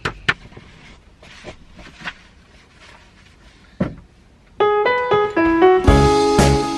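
A few faint clicks and a single knock, then background piano music comes in about two-thirds of the way through with a run of falling notes, swelling into a fuller arrangement near the end.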